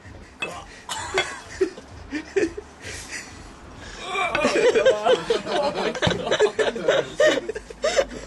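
A metal spoon clinking and scraping against a glass bowl as a serving is dug out and dished up, then, from about halfway through, several people chuckling and laughing.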